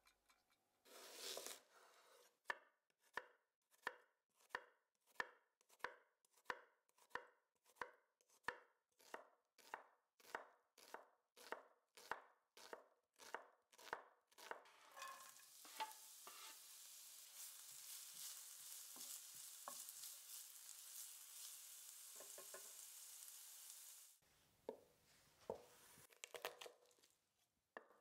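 Chef's knife chopping red onion on a wooden cutting board, a steady rhythm of sharp knife strokes. Then comes a long stretch of denser hissing and crackling, followed near the end by a few separate cuts.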